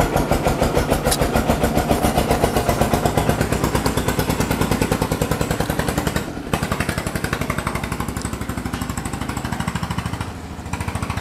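A small engine running at idle, a fast, even putter that goes on steadily and dips briefly twice.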